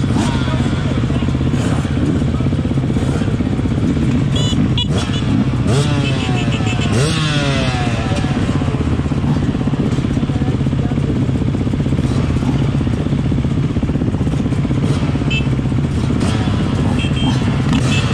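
Beta 390 RR-S four-stroke single-cylinder dirt bike idling steadily, among other dirt bikes idling around it. Engines rev up and down a few times about five to eight seconds in.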